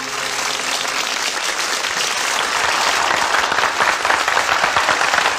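Studio audience applauding, the clapping growing fuller and louder after the first couple of seconds.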